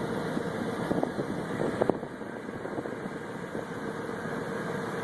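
Ford truck engine idling steadily, with Blue Devil head gasket sealant just added to its coolant to seal a blown head gasket.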